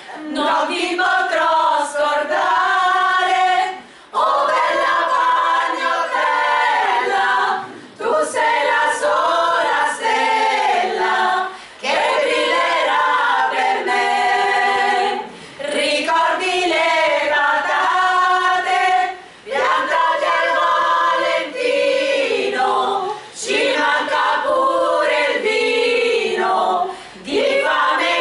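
Small women's choir singing a cappella, in sung phrases of about four seconds, each followed by a brief pause for breath.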